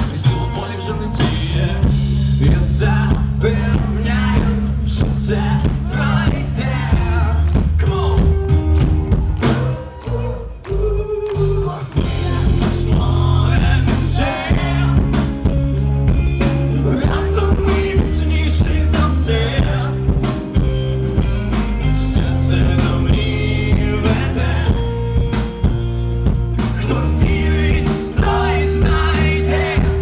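Live rock band playing: a male singer over electric guitars, bass and drum kit. The band drops back briefly about a third of the way in.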